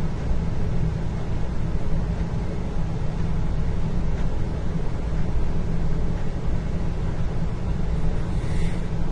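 Indoor ambience dominated by a steady low rumble, like building machinery or ventilation, with a faint brief higher sound near the end.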